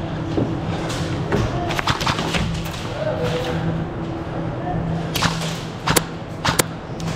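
Airsoft rifle firing: a few sharp cracks, a scattered cluster early on and three louder shots near the end, over a steady low hum.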